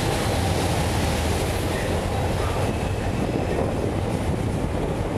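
CTA 2400-series 'L' train cars moving along the station platform on elevated track, with a steady low rumble of wheels on rail.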